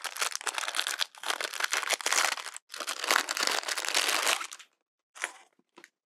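Clear plastic wrapping crinkling as it is pulled off a roll of nylon seatbelt webbing, in three stretches with two short breaks, then two brief soft rustles near the end.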